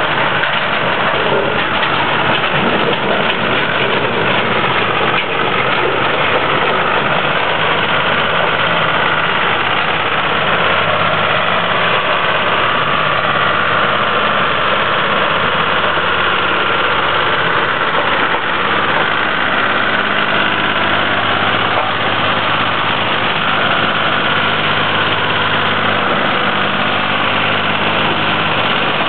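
Excavator's diesel engine running steadily, a constant low hum under dense mechanical noise.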